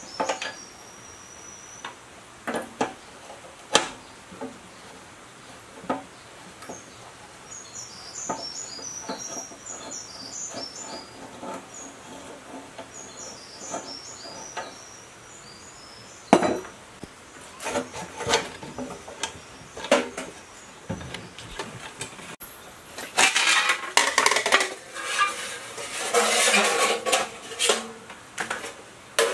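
Scattered metal clinks and scrapes as a T-handle wrench loosens the fasteners in a rusted electric motor's end cover. Near the end comes a denser stretch of metal rattling and rubbing.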